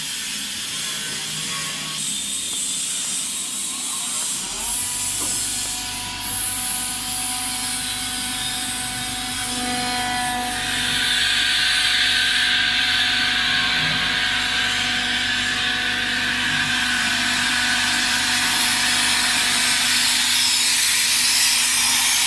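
Rovan DB225 dustless wet sandblasting machine running, its water-and-abrasive blast making a steady hissing rush. A low steady hum joins about five seconds in, and the hiss grows louder about halfway through.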